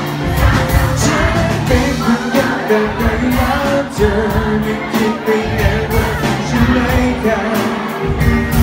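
Live pop band playing a song with electric guitar, keyboard, bass and drums, a steady drum beat under the melody, with singing over it, heard from the audience.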